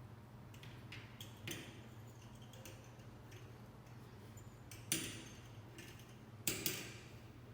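A few light clicks and knocks of small objects being handled, the sharpest about five and six and a half seconds in, over a faint low hum.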